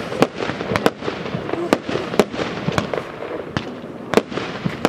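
Fireworks display: aerial shells bursting in sharp bangs at irregular spacing, about two a second, over a steady background of noise between the bangs.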